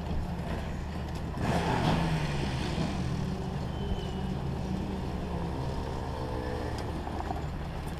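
Rotax DD2 125cc two-stroke kart engines idling while stationary, a steady low rumble. It swells briefly about one and a half seconds in.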